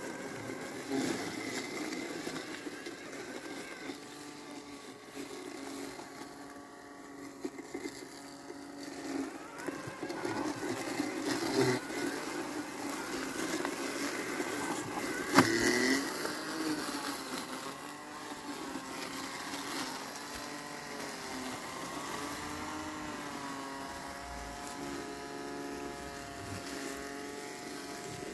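Landxcape 790 robotic lawn mower working through tall weeds: a steady electric motor hum whose pitch wavers up and down as the load changes, with one sharp click about halfway through.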